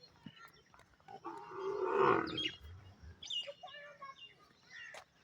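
Birds chirping in short, high calls, with one loud animal call near the middle lasting about a second and a half and dropping in pitch as it ends.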